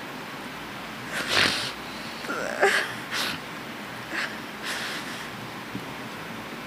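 A woman crying at a microphone: a handful of short breathy sniffles and shaky breaths, with a brief catch in the voice nearly three seconds in.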